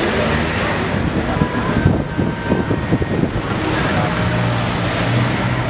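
Road traffic passing close on a busy street: a van and cars driving by, with a steady low engine hum coming in about four seconds in.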